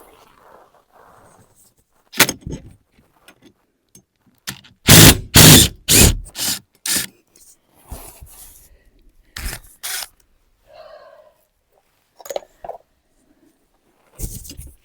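Irregular knocks and bangs of hand work on a wall, the loudest a quick run of heavy blows about five seconds in, with scraping and clatter between them.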